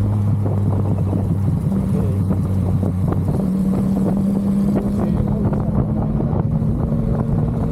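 Yamaha MT-09's inline three-cylinder engine running steadily while the bike cruises, heard from the rider's position, with wind noise. The engine note shifts a little about three seconds in.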